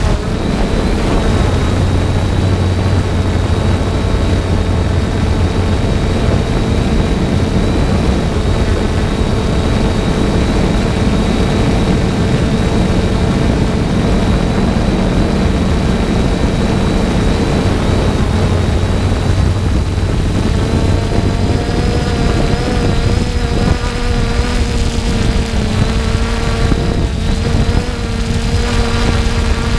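3DR Solo quadcopter's motors and propellers buzzing steadily under a rushing noise. The pitch shifts and wavers about twenty seconds in as the motors change speed.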